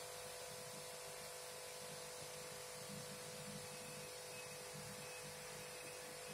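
Quick 850A hot air rework station's air supply running on after switch-off with a steady hum and hiss, cooling the heater and handpiece before the station shuts itself off.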